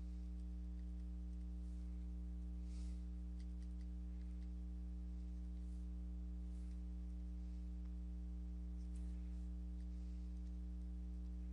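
Steady low electrical hum, with a few faint, light scratches and taps of a stylus writing on a tablet screen.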